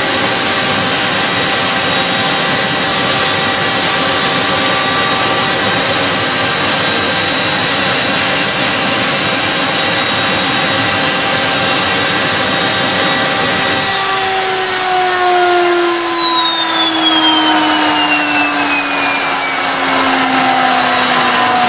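Homemade turbocharger-based jet engine running with a steady high whine over a rushing noise, then shut down about 14 seconds in: the whine falls steadily in pitch as the turbine spools down.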